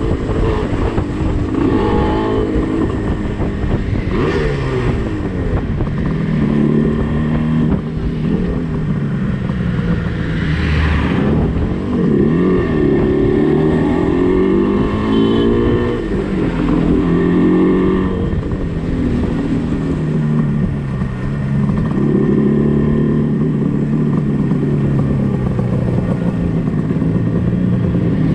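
Yamaha RD350's two-stroke parallel twin running through DG expansion chambers, heard from the rider's seat, with its revs rising and falling again and again. Wind rushes over the microphone.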